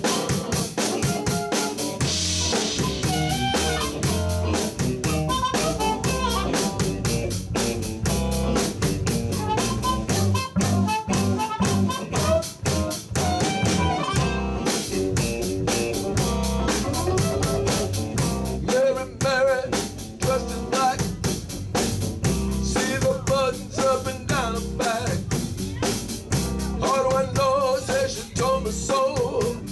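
Live blues band playing an instrumental groove: a drum kit keeping a steady beat under electric bass, guitar and harmonica.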